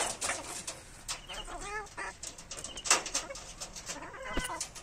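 Hens clucking in two short runs of notes, over many sharp taps and clicks as they peck at mango pieces on a wire-mesh floor.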